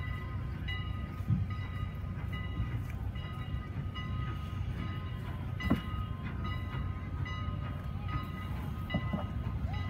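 Steam locomotive and its passenger train in the distance: a steady low rumble with a high ringing note repeating about every two-thirds of a second.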